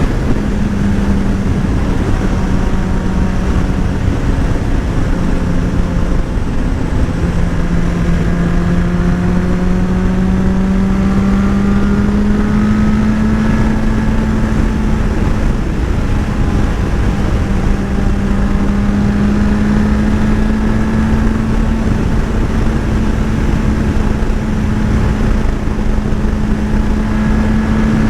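Motorcycle engine running at a fairly steady cruising speed, its note dipping slightly and then rising again, under heavy wind rush on the microphone.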